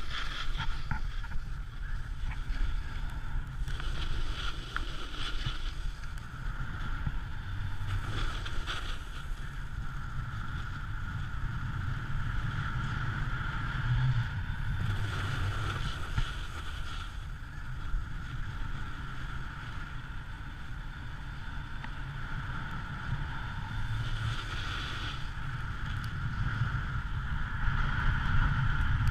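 Snowboard sliding over packed snow, its hiss swelling now and then, with wind rumbling on the pole-held camera's microphone.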